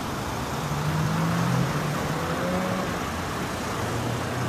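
City street traffic: a steady hum of car and truck engines and tyres on the road, growing a little louder about a second in as a vehicle passes.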